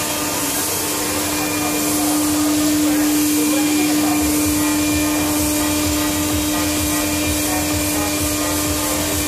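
Five-axis CNC router milling a scale model aircraft fuselage: the spindle runs with a steady tone over a continuous rushing hiss, getting slightly louder about two seconds in.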